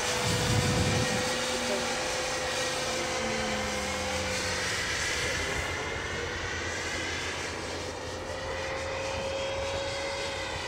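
70 mm electric ducted fan in a converted Zagi flying wing running in flight: a steady whine over a rushing hiss, shifting in pitch and colour as the model flies past.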